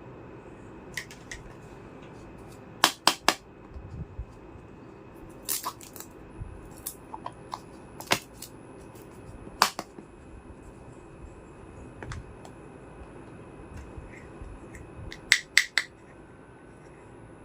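Sharp clicks and taps of small miniature kitchen-set pieces being handled and set down, coming in irregular clusters of two or three, the loudest near the start and near the end.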